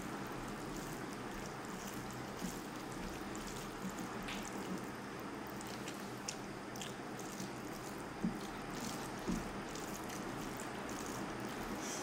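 Close-miked sounds of eating rice and fish curry by hand: wet squishing as fingers mix the rice, with scattered soft mouth smacks and clicks while chewing, over a steady background hiss.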